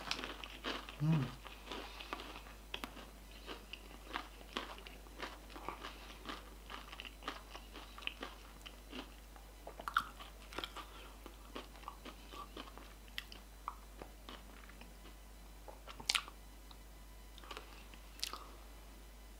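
Close-up crunching and chewing of a mouthful of Takis rolled tortilla chips. The crunches come thick and fast at first, then grow sparser as the chip is chewed down. A brief low hum comes from the eater about a second in.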